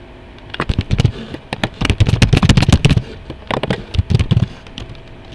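Computer keyboard typing: quick runs of loud key clicks, with a short break about three seconds in.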